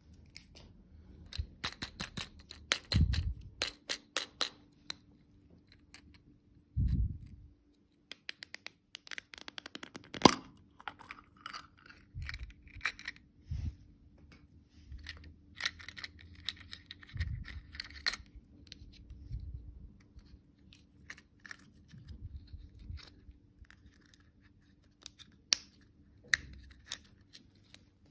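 Close-up handling and opening of candy packaging: scattered sharp clicks and taps of plastic, short spells of wrapper crinkling, and a few low thumps.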